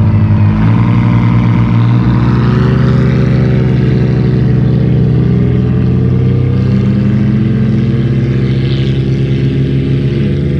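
Jeep engine running hard under full throttle during an off-road drag run. Its pitch climbs early, then holds high with slow rises and dips.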